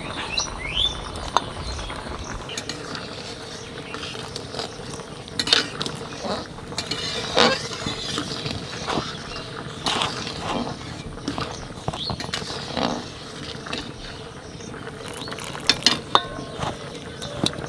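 A hand rubbing and squeezing flour and ghee in a stainless steel bowl, making irregular scratchy rustles and scrapes against the metal. A thin trickle of water is poured in near the end.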